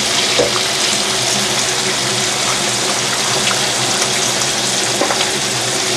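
Tap water running steadily into a stainless colander of sliced onions as hands squeeze and rinse them, washing out excess salt.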